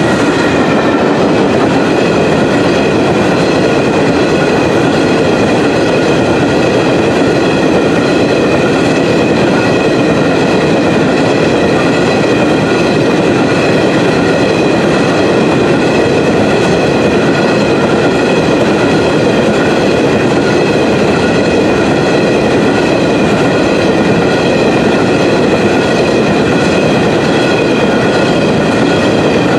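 Covered hopper cars of a long freight train rolling past close by: a loud, steady rumble of steel wheels on the rails, with a set of steady high-pitched tones ringing above it.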